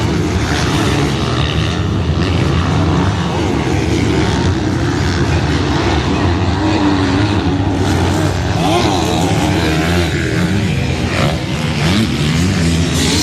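Several MX2-class motocross bikes racing, their engines overlapping and revving up and down as they accelerate and shift.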